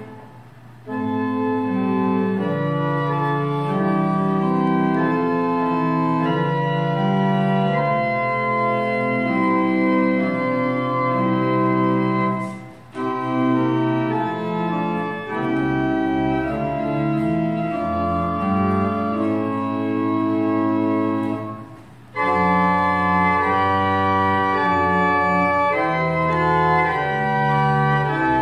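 Church organ playing slow, sustained chords in phrases, with short breaks between phrases about 13 and 22 seconds in. Deep bass notes join from about 15 seconds in.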